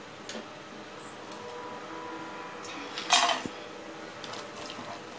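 Cashew nuts tipped into a small steel kadai of hot ghee, clattering against the metal in one short burst about three seconds in, with a few light knocks on the pan around it.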